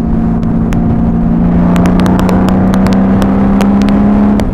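Honda Valkyrie flat-six engine through Cobra six-into-six exhaust pipes, running steadily under way with its pitch rising a little about halfway through as the bike speeds up. Sharp clicks sound on the helmet microphone through the second half.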